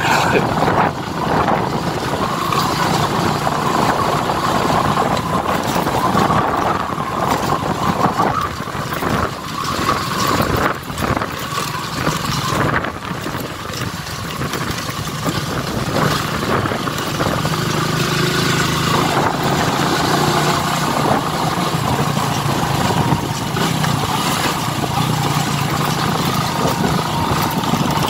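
Motorcycle engine running as the bike rides along a rough dirt track; the low engine hum turns steadier in the second half.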